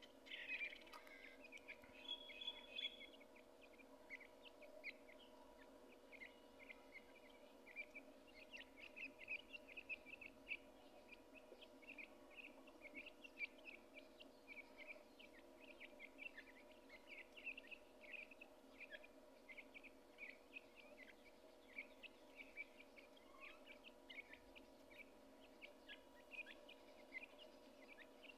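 Partridge chicks peeping: many faint, short, high chirps in quick succession, over a steady low hum.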